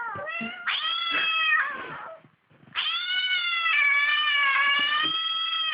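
A cat yowling in long drawn-out wails: a short call at the start, one lasting about a second, then after a brief pause a longer one of about three seconds.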